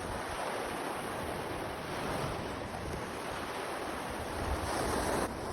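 Strong Lake Michigan waves breaking and washing over a rocky beach, a steady surf that swells twice, with wind buffeting the microphone.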